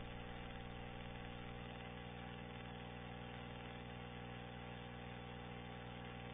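A faint, steady hum made of several fixed tones with a light hiss over it, unchanging throughout.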